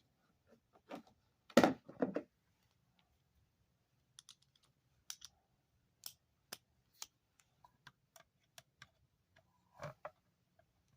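Hand tools knocking and clicking against metal. A few knocks come about a second and a half in, then a string of single sharp clicks, about two a second, and another knock near the end.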